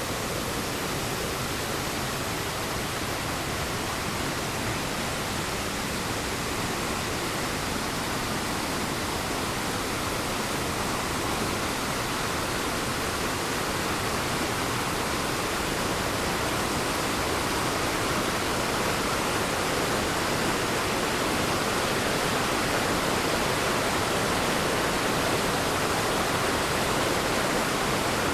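Waterfall roaring steadily, an unbroken rush of falling water, growing slightly louder in the second half.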